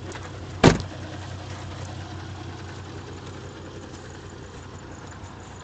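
Volvo D5244T 2.4-litre five-cylinder turbodiesel idling steadily, with a single sharp thump less than a second in.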